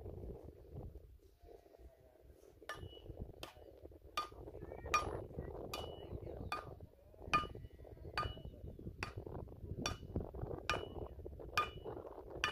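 Hammer blows on metal, a steady series of about a dozen strikes roughly one every 0.8 seconds, each with a short ring, starting a couple of seconds in.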